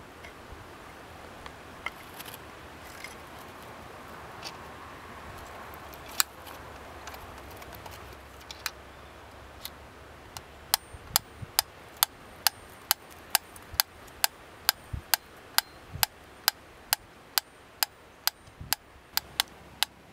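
A wooden pyramid-style mechanical metronome. A few scattered clicks come as it is handled and set going, then from about halfway through it ticks steadily at roughly two and a half ticks a second.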